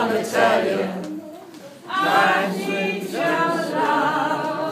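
A voice singing unaccompanied, holding long notes, with a short pause about a second in.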